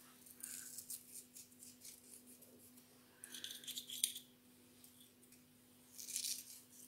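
Faint rustling and clicking of a small plastic box of saffron threads being handled and opened, and the threads crumbled between the fingers over the pot, in three short spells.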